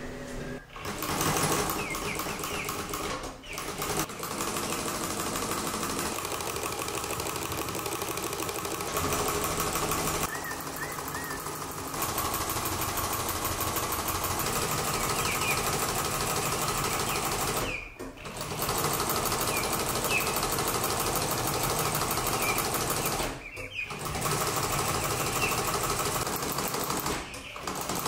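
Treadle chain-stitch sewing machine stitching at a fast, even rate. It stops briefly about five times, then starts again each time.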